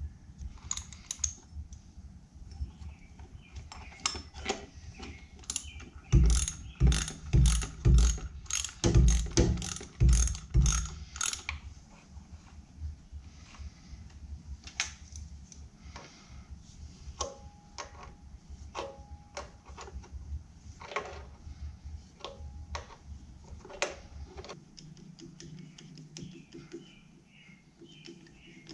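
Hand ratchet clicking in bursts while bolts on the engine's thermostat housing are tightened. A fast, loud run of strokes comes from about six to eleven seconds in, followed by scattered single clicks.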